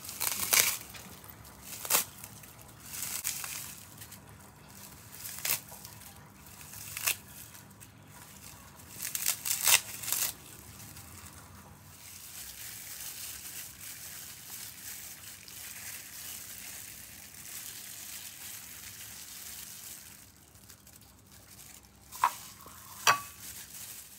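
A brittle sheet of dried seaweed being crumpled and broken apart by hand, crackling in sharp bursts for about ten seconds. Then comes a steady rush of water for several seconds as it is soaked, and two light knocks near the end.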